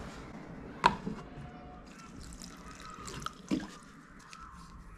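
Water being poured onto a houseplant, trickling and dripping. There is a sharp knock about a second in, the loudest sound, and a softer one about three and a half seconds in.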